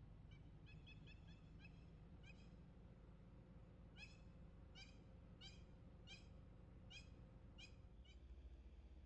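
Hamerkop calling: a quick run of thin, nasal notes, then after a pause a string of about seven louder notes a little over half a second apart.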